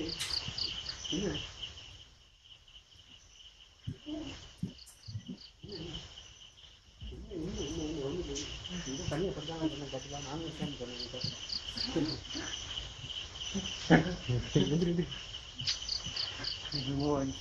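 Steady night-time chirring of crickets, with repeated short trains of chirps above it. Muffled voices come and go in the middle and near the end, and a sharp knock sounds about fourteen seconds in.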